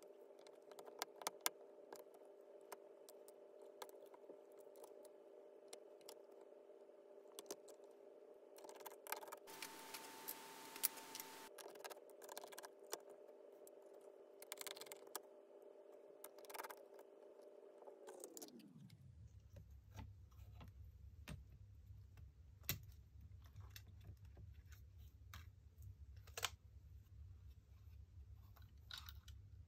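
Faint clicks, taps and small metallic handling sounds of tools and parts being worked inside an opened laptop as the motherboard is freed and lifted out. Behind them runs a steady hum that slides sharply down in pitch about two-thirds of the way through and stays low after that.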